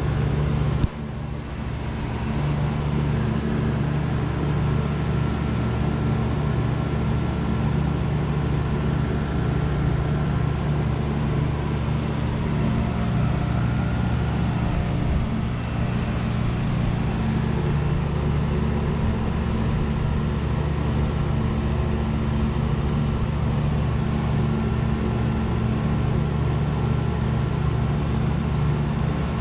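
Trane Odyssey heat pump running with a steady low mechanical hum. About a second in, a sharp click, then a sudden drop in level that builds back up over the next second or two.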